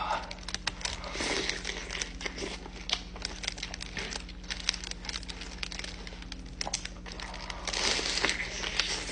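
Close-up eating sounds: a bite into crispy fried chicken coated in gravy, with crackly crunching and wet chewing. The crunching is louder near the end.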